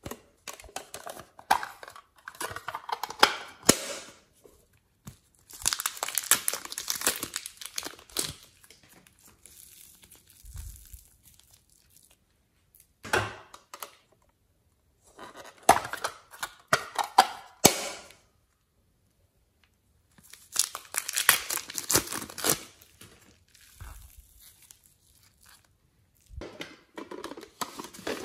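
Hands handling a plastic toy case: several bursts of crinkly plastic rustling, each a second or two long, with sharp plastic clicks and short quiet gaps between.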